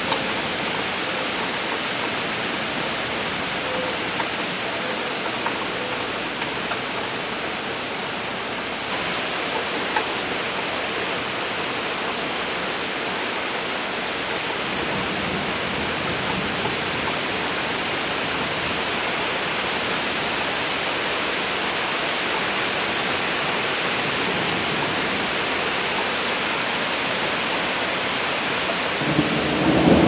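Steady rain storm, a dense even hiss of rainfall. About a second before the end, a rumble of thunder begins and grows louder.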